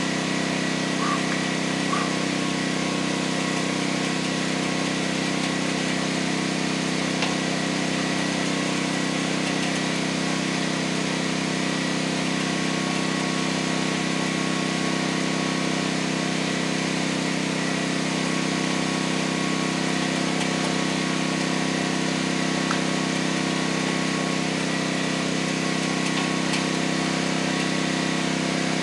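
A small engine running steadily at constant speed, with a few faint knocks here and there.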